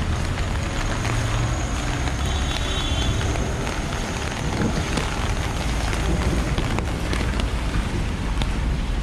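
City street in the rain: motor vehicles running in slow traffic on a wet cobbled street, a steady low rumble of engines and tyres under a hiss of rain, with scattered faint ticks and spatters.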